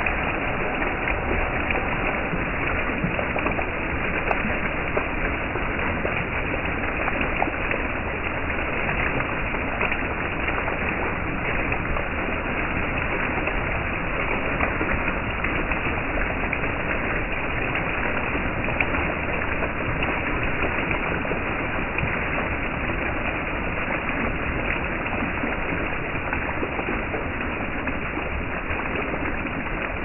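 A water fountain of earthenware jars: thin jets spout from holes in the jar lids and fall back onto the lids and the wet ground, a steady splashing of running water.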